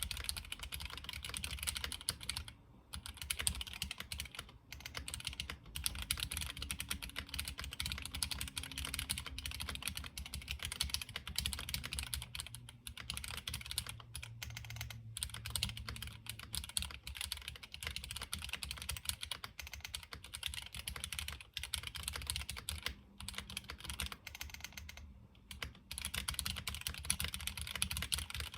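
Fast, continuous typing on a gasket-mount mechanical keyboard with factory-lubed TTC Gold Pink linear switches, an FR4 plate and GMK keycaps. The key clacks run densely, broken only by a few brief pauses.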